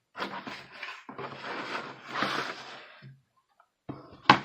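Rustling and scraping of packaging being handled for about three seconds, then a sharp click near the end.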